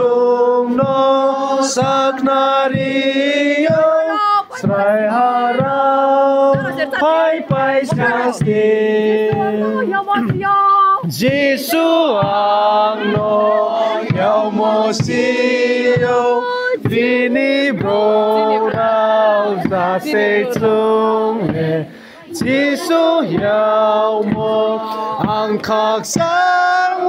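A group of men's and women's voices singing a hymn together, with a short break about three-quarters of the way through.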